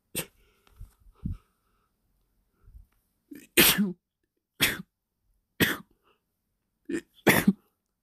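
A person's sneezing fit: a few short breathy catches, then about five sneezes in quick succession, roughly one a second, after being teased into it.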